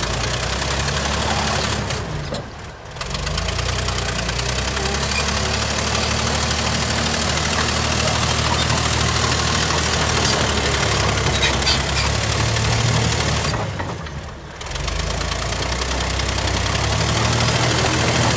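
Bulldozer's diesel engine running steadily, with two brief drops in level, about two and a half seconds in and again near fourteen seconds.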